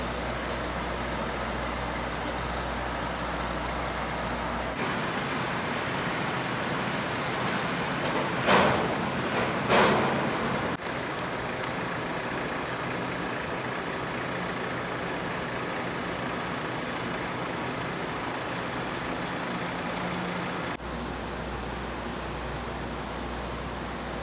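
Steady hum of engines and machinery from parked trucks and a moored car ferry, with a deep low layer that drops out about five seconds in and returns near the end. Two short, loud hisses a little past the middle, about a second apart.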